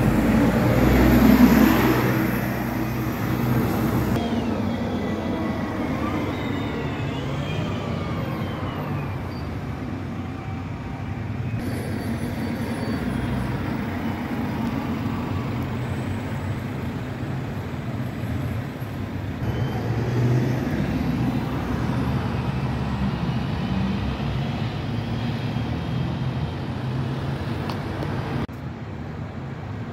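Double-decker buses and cars driving past on a road: bus engines running as they pass, loudest in the first two seconds, over steady traffic noise. The sound changes abruptly between several separate passes.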